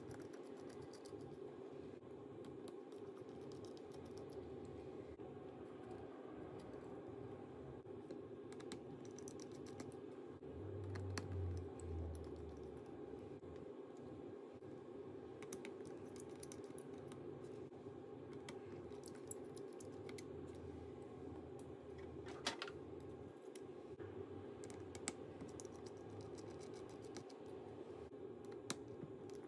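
Faint, scattered small clicks and ticks of a precision screwdriver and fingertips working the small screws of a MacBook Pro's antenna assembly, over a steady hum. A short low rumble of handling comes about eleven seconds in, and a sharper click comes about twenty-two seconds in.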